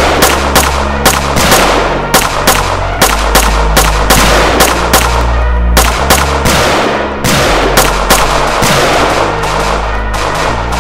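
Film score with held low bass notes, over which comes a rapid, irregular run of loud sharp cracks, gunshots in a shootout.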